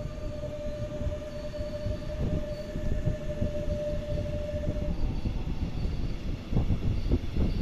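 Electric train pulling out of a station, heard from inside a coach hauled by a class 185 (Bombardier TRAXX) electric locomotive. Its traction drive gives a steady hum over a rolling rumble, and the hum stops about two thirds of the way in. Near the end the wheels clatter over track joints.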